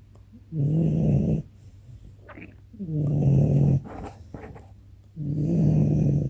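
A sleeping puppy snoring: three slow, buzzing snores, each about a second long, roughly every two and a half seconds, with quiet breaths in between.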